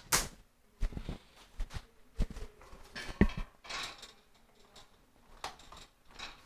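Irregular short clicks and knocks of hard objects being handled, the loudest right at the start and others about a second apart, with a quieter stretch in the second half. No vacuum motor is running yet.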